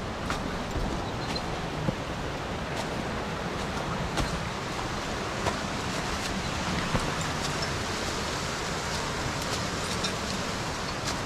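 Mountain stream rushing over rocks: a steady hiss of flowing water, with a few scattered sharp clicks.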